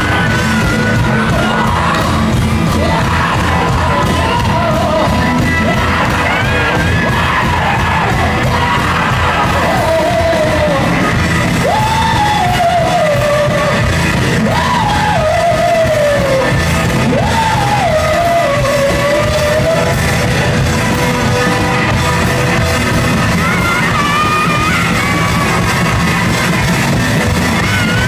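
Live rock band playing loudly with a singer, recorded from the audience.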